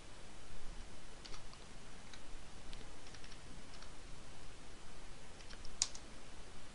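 Computer keyboard keys tapped in short, scattered keystrokes, with one louder keystroke near the end.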